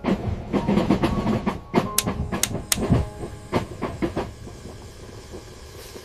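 Train running on rails: a low rumble with irregular clattering clicks and knocks, some with a short ringing clink, easing off in the last second or two.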